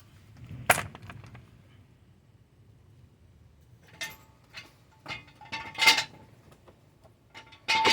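Metal tools and parts being handled under a car during a brake job. There is one sharp clank less than a second in, then from about four seconds in a run of lighter metallic clinks, some with a short ring.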